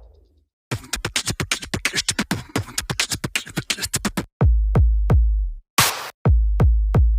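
Electronic background music with a drum-machine beat: a short silence, then a fast run of clicks, then heavy bass hits.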